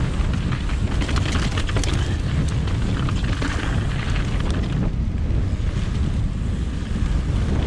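Wind buffeting a chest-mounted action camera's microphone on a fast mountain-bike descent, over tyre noise and the bike rattling across a rocky gravel trail. The rattling clicks are dense at first and ease off about five seconds in.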